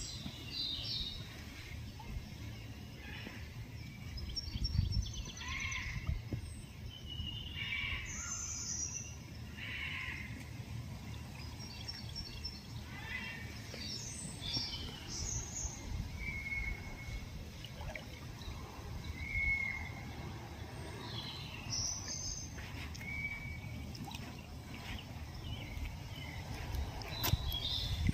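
Small birds chirping and calling on and off, with a few short whistled notes in the second half, over a steady low background rumble.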